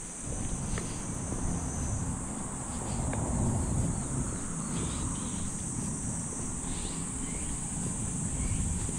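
A steady, high-pitched chorus of cicadas in the trees, over a low rumble.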